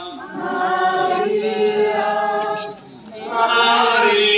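A procession crowd singing a hymn to the Virgin Mary together in long held notes, with a short break for breath about three seconds in before the next phrase.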